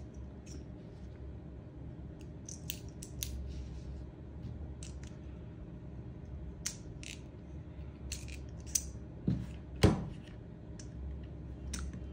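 BBs being pushed into a WE HK416C gas blowback magazine with a pen-style speed loader tube: scattered small clicks, with a louder knock a little before ten seconds in. The magazine is new and stiff to load.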